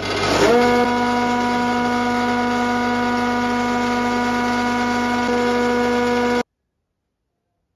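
Kity 636 planer/thicknesser switched on, its motor and cutter block coming up to speed within about half a second and then running steadily with a constant whine. No cut is heard, because the machine isn't feeding the board through. The sound cuts off suddenly about six and a half seconds in.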